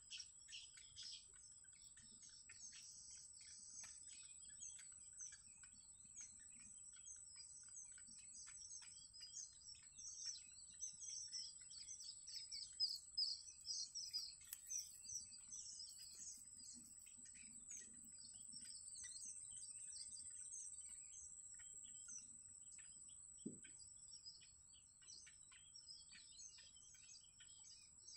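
Yellow bittern chicks begging at the nest: rapid, high, thin chirps run throughout and come thickest about ten to sixteen seconds in, when the chicks jab at the parent's beak for food. A steady high-pitched hum sits under them.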